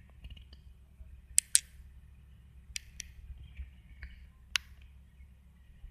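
Low, steady rumble inside the cabin of a car waiting with its engine running, with a few sharp clicks: two quick pairs, then a single one.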